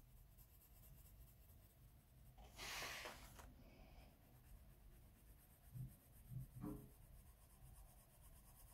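Coloured pencil shading on paper, very faint, with one louder scratchy stroke lasting about a second, a few seconds in, and a few soft low knocks around six seconds in.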